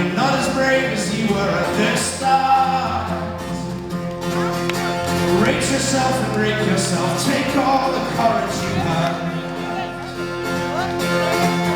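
Live folk-rock band playing: fast strummed acoustic guitar and banjo with male singing, heard through the hall's reverberation.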